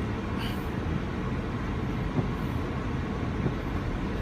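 Steady engine and road noise inside the cabin of a four-wheel-drive vehicle being driven, with one small tick about two seconds in.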